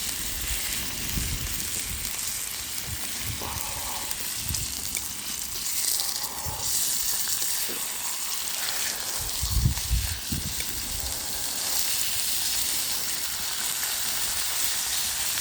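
Pork belly sizzling on a marble slab heated by a wood fire: a steady crackling hiss of fat frying. A few dull bumps come through underneath, the strongest about two-thirds of the way in.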